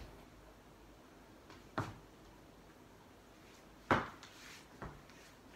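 A few short knocks in a quiet room, the loudest about four seconds in.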